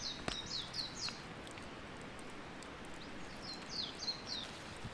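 A songbird singing a quick run of four or so short, falling whistled notes, then another run about three and a half seconds later.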